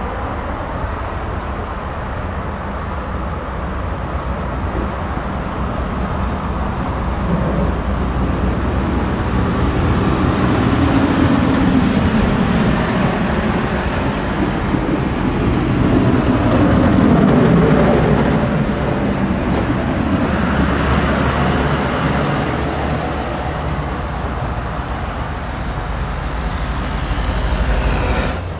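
Heavy snow plow trucks driving past in convoy: diesel engines running and plow blades pushing along the snow-covered road. The sound builds to its loudest a little past the middle as the trucks pass, then eases.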